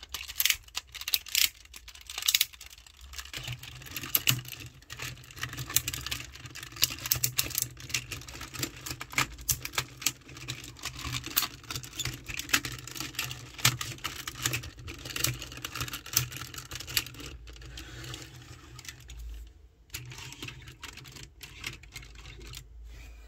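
Plastic clicks, snaps and rattles of a Tobot transforming car-robot toy being folded by hand into robot form: many short clicks in quick succession, thinning out near the end as the toy is set down.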